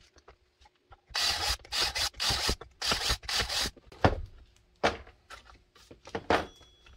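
Power drill boring a rivet hole through kydex holster sheet in about six short, harsh bursts, followed by several sharp knocks.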